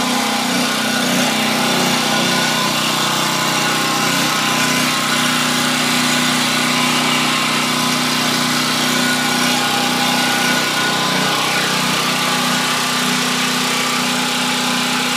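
Powermat 3,000-watt portable generator's 212 cc single-cylinder engine running steadily on its first run, under a light load from a plugged-in work light.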